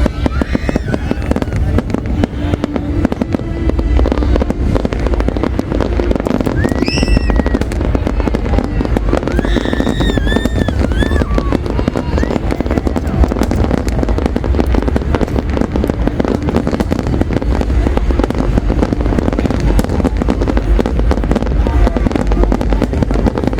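Large fireworks display in a continuous barrage: dense, rapid bangs and crackling over deep booms, never letting up. A few short high whistling tones break through about a third of the way in.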